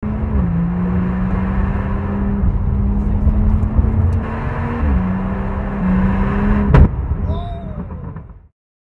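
BMW M140i's 3.0-litre turbocharged straight-six through a Remus cat-back exhaust, running at a fairly steady engine speed under road noise. The note drops shortly after the start and shifts pitch a couple of times. About seven seconds in, a single sharp bang is the loudest sound, and then everything fades out.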